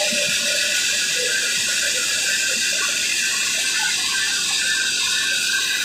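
Tractor-powered flour mill (atta chakki) running steadily, a continuous grinding hiss with flour streaming out into the sack.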